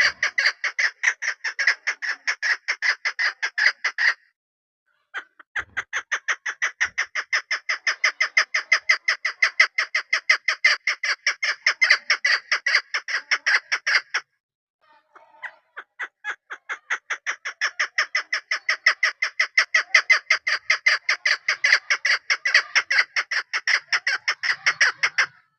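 Female chukar partridge calling in long runs of rapid repeated notes, about six a second. The calling breaks off twice, briefly, at about a third of the way in and again near the middle.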